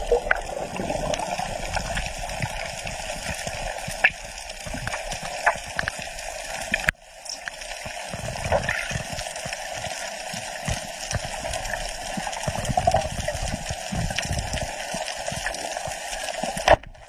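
Underwater ambience picked up by a camera in its housing below the surface: a steady rush of water with scattered faint clicks and crackles. The sound cuts out abruptly for a moment about seven seconds in and again near the end.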